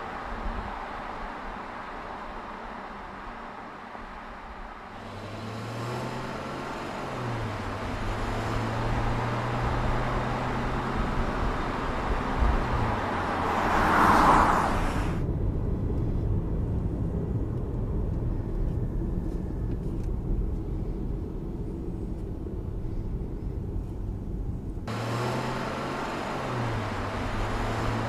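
Audi A8 sedan driving past with a low, steady engine drone and road noise. The drone comes in about five seconds in, briefly steps up in pitch and then settles. A loud whoosh of the car passing close by comes about fourteen seconds in.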